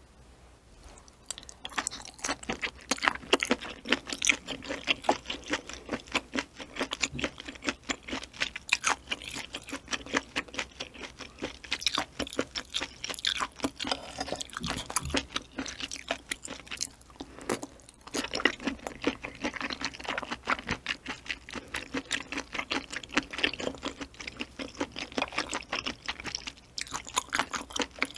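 Close-miked mouth sounds of chewing boiled octopus slices together with sunfish jelly: a dense, uneven run of sticky clicks and smacks that pauses briefly about two-thirds of the way through.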